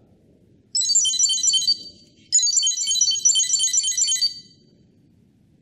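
SpotyPal Bluetooth tracker's small buzzer playing its high-pitched beeping ringtone melody, rung from its phone app to locate it. It comes in two bursts of rapid beeps, the second longer, then stops.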